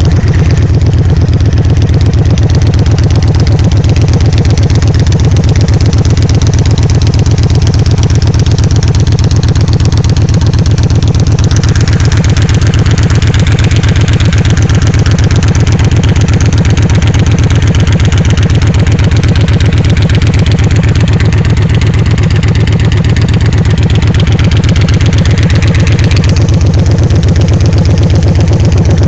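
Victory High Ball's V-twin running steadily through aftermarket Hacker Zoomies exhaust pipes, with an S&S air intake. It is loud and even throughout, a deep, evenly pulsing exhaust note.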